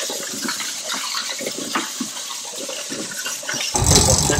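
Wet concrete mix being worked by hand in a metal bucket, a gritty, irregular sloshing and scraping. Louder music with drums cuts in near the end.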